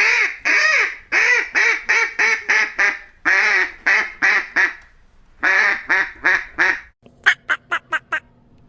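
Duck quacking in three runs of loud, nasal quacks, the first of about eight and the next two of four or five each. About seven seconds in, it changes to six short, clipped calls over a faint steady hum.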